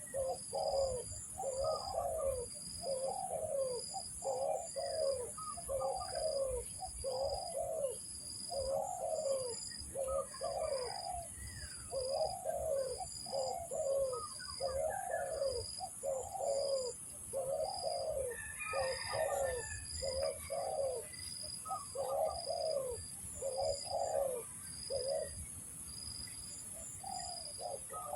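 Spotted doves (tekukur) cooing, a quick run of repeated coo notes about one and a half a second that pauses briefly near the end.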